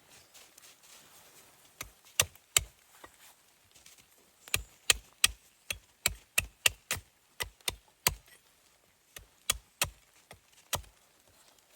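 Axe chopping wood: about twenty sharp, separate blows in bursts, three quick strikes near the start, then a steady run of about three a second, then a few more after a pause.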